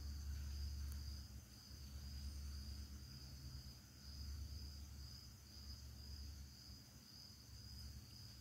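Insects trilling steadily at a high pitch, over a low hum that fades and returns several times.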